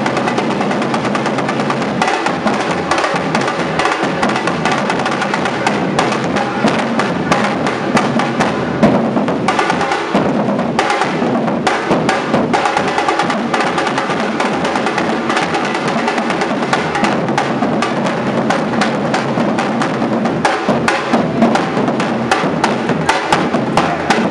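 A bloco afro drum section of many large painted surdo bass drums beaten with mallets, playing a loud, dense samba-reggae rhythm together.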